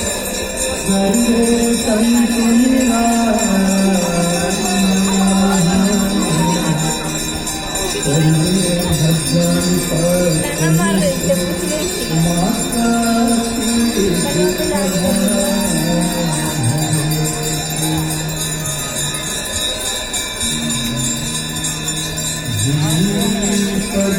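Music with a slow, held melody and jingling bells.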